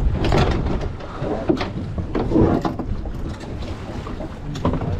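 Steady low rumble of wind and sea noise aboard a boat offshore, with a few sharp knocks about a third of a second in, at about a second and a half, and near the end.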